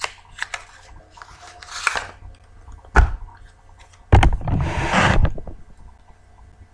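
Handling noises close to the microphone: a few sharp clicks and short rustles, the loudest a longer rustle with a low rumble about four seconds in.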